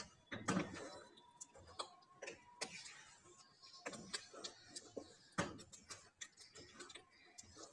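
A spoon stirring thick spinach purée in a metal karahi, knocking and scraping against the pan's side in faint, irregular clicks.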